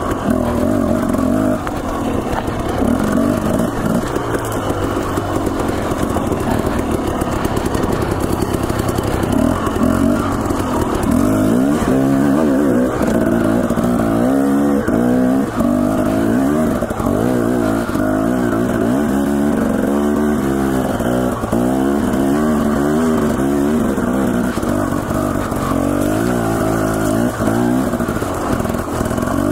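Dirt bike engine running under load as it is ridden along a rough single-track trail. Its pitch rises and falls over and over with constant throttle changes, busiest through the middle stretch.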